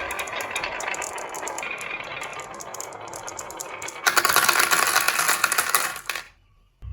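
Marbles rolling and clicking along a marble run track, a dense rattle of small hard impacts; about four seconds in it turns into a louder clatter for some two seconds, then stops suddenly.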